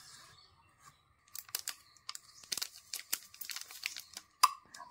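Sparse, irregular quiet crinkles and clicks, starting about a second in: a fruit-salt (Eno) sachet being torn open and its powder shaken out over batter.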